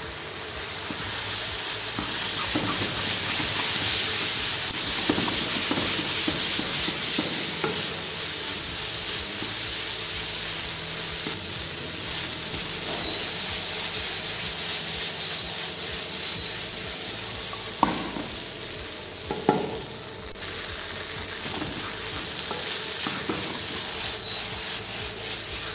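Noodles stir-frying on high heat in a non-stick pan, sizzling steadily as a wooden spoon stirs and tosses them. Two sharper knocks stand out about two-thirds of the way through.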